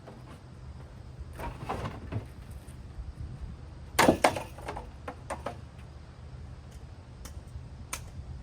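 A string of knocks and clatters from handling a ceiling fan, the loudest a quick cluster of sharp hits about four seconds in, with lighter single knocks before and after, over a steady low hum.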